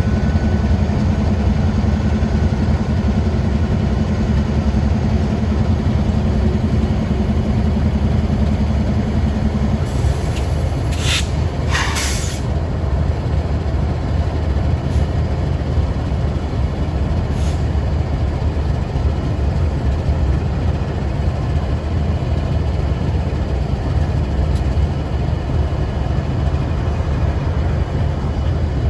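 Several diesel freight locomotives running as they move slowly past, a steady low engine rumble. A held tone in the rumble drops away about ten seconds in, and two brief high hisses come about eleven and twelve seconds in.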